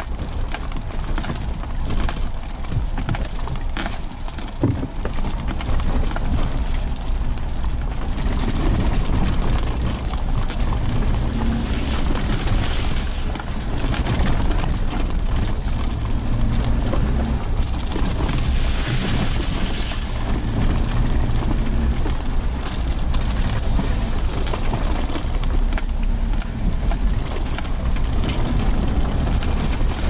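Suzuki Jimny Sierra driving on a rough dirt forest road: steady engine and tyre rumble with frequent knocks and rattles from the bumpy surface.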